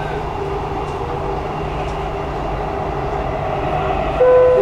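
Dubai Metro train running, heard from inside the carriage as a steady low rumble and hum of wheels and motors. Near the end a clear, steady pitched tone starts and is the loudest sound.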